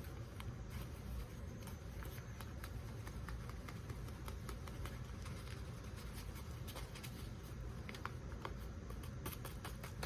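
Rain falling: a faint, steady patter of many small irregular drops over a low background hum.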